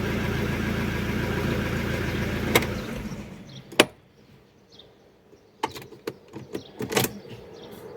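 Alfa Romeo 147 1.9 JTD diesel engine running warm, then shut off about three seconds in and dying away. A few sharp clicks follow, the key and ignition being worked ahead of a hot restart test.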